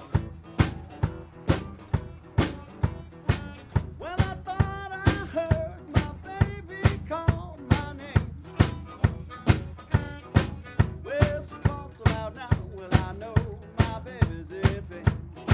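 Live blues band playing: harmonica carrying the melody with bending notes over a strummed acoustic guitar and a steady drum-kit beat of about two strokes a second.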